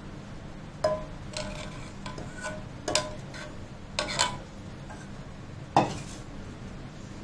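Steel spoon scraping and knocking against a steel saucepan and a glass bowl as thick tomato ketchup is poured off: a scattered series of clinks with brief metallic ringing, the sharpest one near the end, over a steady low hum.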